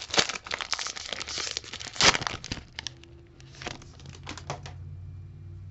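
Foil wrapper of a Panini Mosaic UEFA Euro soccer card pack crinkling as it is torn open by hand, with a sharp tear about two seconds in. A few softer clicks and rustles follow as the cards are slid out of the wrapper.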